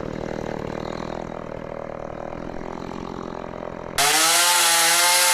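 STIHL MS 170 two-stroke chainsaw idling steadily after being let back off the throttle. About four seconds in it cuts off abruptly, replaced by a louder voice.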